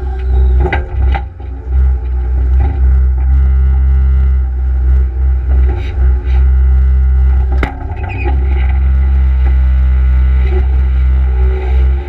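Case skid steer loader's diesel engine running steadily under work, with a deep steady rumble and a few sharp knocks, twice near the start and once past the middle.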